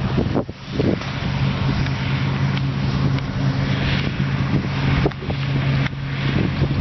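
Diesel engine of harvest machinery running steadily at working speed, with a constant low hum and a hiss of working noise over it.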